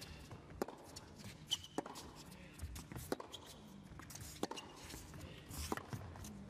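Tennis ball struck back and forth by racquets in a baseline rally: five sharp hits at an even pace, about one every 1.3 seconds.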